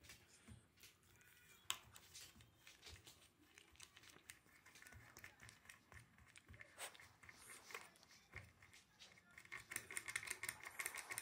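Norfolk terrier's claws scratching and clicking faintly and irregularly, breaking into a rapid scrabbling flurry near the end: the dog pawing to beg for food.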